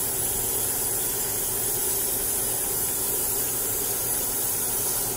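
Steady high hiss of steam and sizzle from a pot of hot palm-oil gravy as water is added. It starts and stops abruptly.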